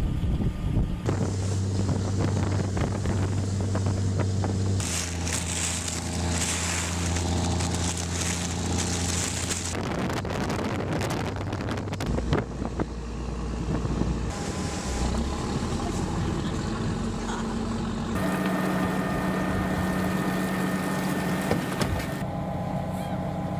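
Motors aboard a fishing boat running with a steady hum, with wind on the microphone. The pitch of the hum changes abruptly several times.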